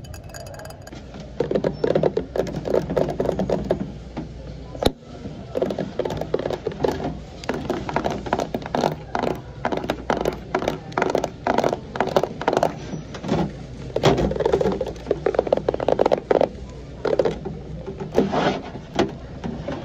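Long fingernails tapping and scratching on hard store items, first a white bowl, then a hard case with metal edges and a chrome latch: quick runs of taps and scrapes with one sharp click about five seconds in.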